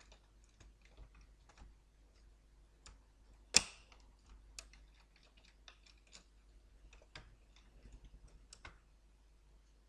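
Faint, scattered clicks and taps of a motherboard being pressed and seated by hand into an all-in-one computer's metal chassis, with one sharp, louder click about three and a half seconds in.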